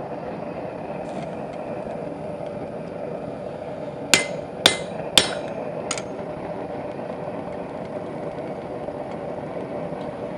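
Four hand-hammer blows on a steel punch, about half a second apart with the last one lighter, punching square nail holes through hot bar stock for a forged hinge, over a steady rushing noise.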